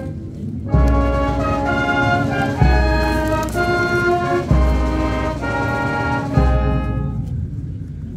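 Slow, solemn ceremonial music with brass. It moves in sustained chords, a new chord about every two seconds, and each one opens with a deep low note.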